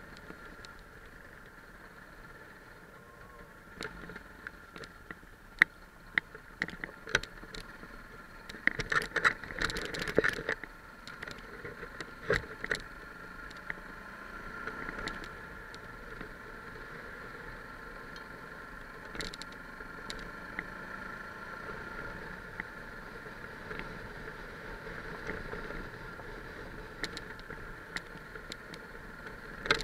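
Yamaha 660 single-cylinder dual-sport motorcycle riding over a rough gravel track, heard from a camera mounted on the bike: a steady engine hum with wind, and a run of sharp clicks, knocks and rattles over the bumps, thickest about nine to ten seconds in.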